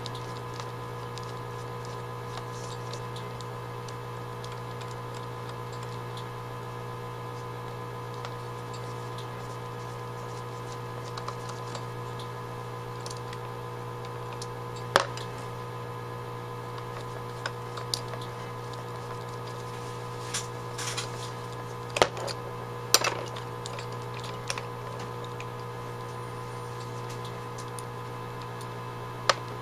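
Scattered small metal clicks and taps as screws are backed out of an Autolite 1100 carburetor with a screwdriver and the screws and a diaphragm cover are handled and set down on the tray. The clicks are sparse at first and more frequent in the second half, the loudest about halfway through and a few seconds later, over a steady background hum.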